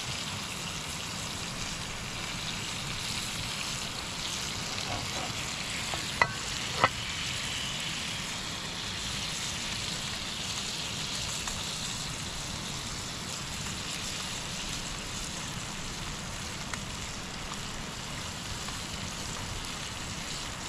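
Coho salmon fillet and potatoes frying in butter in a pan, a steady sizzle, with two sharp clicks about six seconds in.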